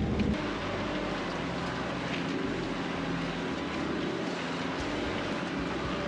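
Four-wheel drive crawling slowly over a rocky dirt track: a steady engine drone with tyres rolling over stones. A louder in-cab engine drone is heard for the first moment.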